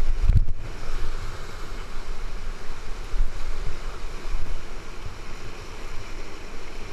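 Whitewater rapids rushing steadily over rocks, with low buffeting on the microphone, strongest just after the start.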